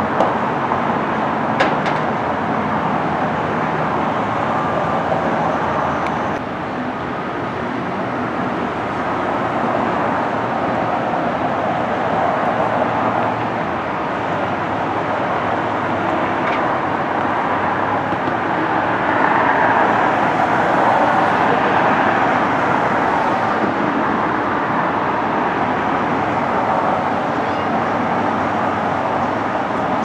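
Steady road traffic noise that swells louder for a few seconds past the middle.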